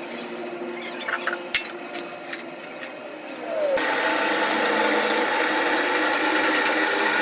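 Sharp clicks and taps of metal work, then a steady machine noise that starts abruptly about halfway through.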